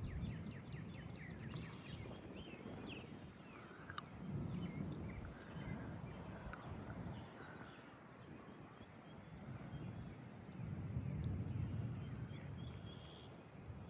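Gusty wind making a low rumble that swells twice, with birds chirping now and then.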